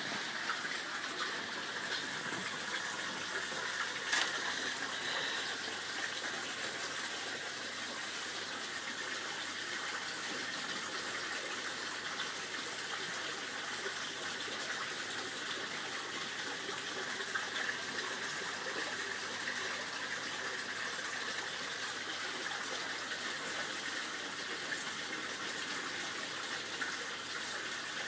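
Steady splashing gush of water pouring into a koi pond, with one brief click about four seconds in.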